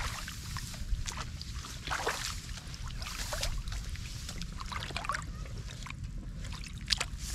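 Shallow water splashing and sloshing in irregular bursts every second or so, as hands grab and wade through it, with one sharper splash near the end.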